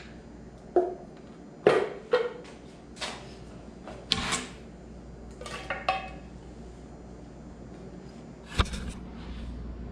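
Scattered metallic clinks and knocks of a hand tool and a Honda K24 engine's timing chain cover as the cover is worked free and lifted off the engine. The sharpest knock comes about two seconds in, another near the end.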